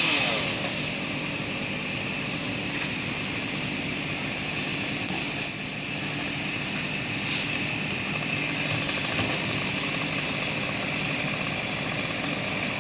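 A small gasoline engine running steadily at an even speed, with one brief sharp click about seven seconds in.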